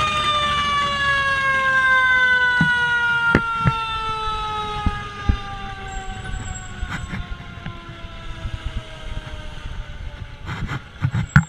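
Fire engine siren, having just risen, winding slowly down in pitch for about ten seconds and fading. A few sharp knocks cut through it, the loudest in a cluster near the end.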